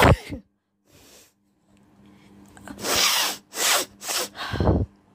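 A woman sneezing: one loud voiced sneeze right at the start, then after a pause four sharp, breathy bursts in quick succession, the last the heaviest. A faint steady hum runs underneath.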